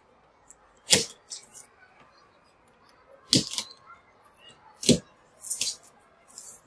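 Polystyrene foam packaging insert creaking and cracking as it is handled and worked out of a cardboard box: three loud sharp cracks, about a second in, in the middle and just before five seconds, with smaller crackles between them.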